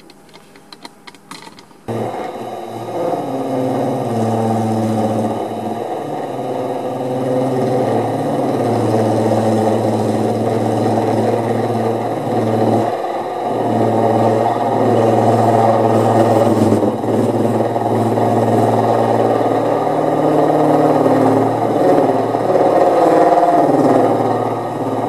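Old Hitachi 1 hp induction motor starting up suddenly about two seconds in and running with a steady hum, while a hand-held lathe tool cuts the brass spindle adapter on its shaft, truing it to the motor's own axis.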